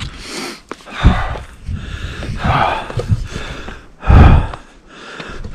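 A person's breathing close to the microphone, in irregular breaths, with strong low bumps on the microphone, the loudest about a second in and about four seconds in.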